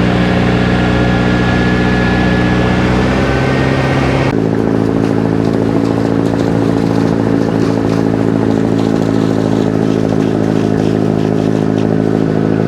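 Engine of a motorized outrigger canoe running steadily, its pitch and tone changing abruptly about four seconds in.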